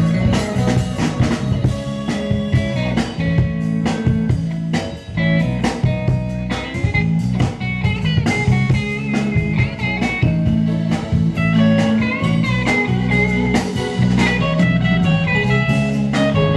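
Live band playing a bluesy rock number at a sound check: lead guitar with bent notes over steady low notes and a drum kit.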